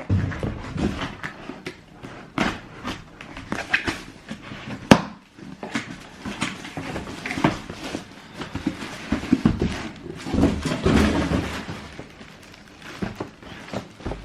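Cardboard shoebox and paper being handled: irregular rustling with clicks and knocks, and one sharp knock about five seconds in.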